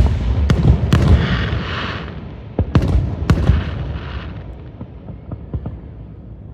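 Aerial fireworks bursting: a loud bang at the start, then sharp cracks and a crackling hiss. A second volley of bangs comes about two and a half seconds in, then it dies away into scattered pops.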